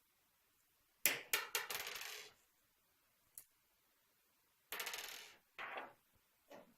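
Small metal screws dropped and clattering, in a rattling cluster about a second in and again near the end.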